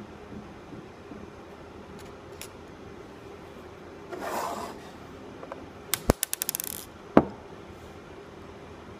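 Steel ball bearings coming out of a wireline wheel's hub as the wheel is turned: a short metal rub about four seconds in, then a quick run of small sharp clicks as bearings drop and bounce in a dish, and one more click a moment later.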